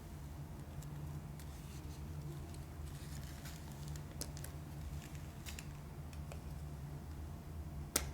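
Light clicks and rustles of a camera and its packaging being handled, over a steady low hum, with one sharper click near the end.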